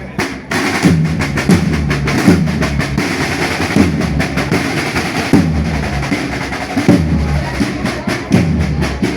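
Music with a steady drum-kit beat and a bass line.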